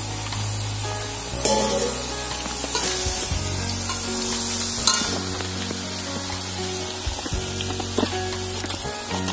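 Tapioca chips deep-frying in hot oil in a wok, a busy sizzling hiss that is strongest in the first few seconds, as the slices' moisture cooks off. Background music with held notes plays throughout, with a few light clicks.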